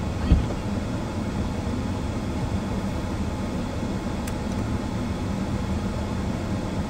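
Steady mechanical hum of a car running while parked, heard from inside the cabin with the driver's door open. There is a single thump about a third of a second in.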